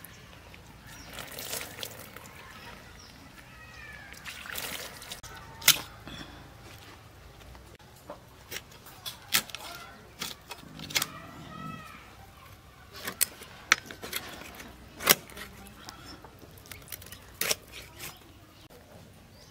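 Water splashing and pouring as a killed duck is rinsed over a basin, then a series of sharp cracks and knocks as the duck carcass is cut up on a bonti, a curved blade on a wooden base. A short bird call sounds briefly near the middle.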